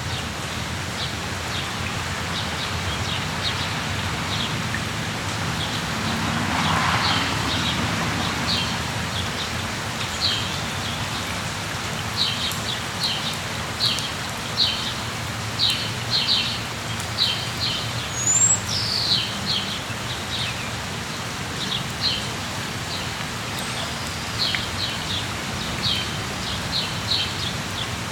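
Steady rain falling, with small birds chirping over it: quick series of short, high chirps in bursts, busier in the second half, and one brief rising whistle about two-thirds of the way through.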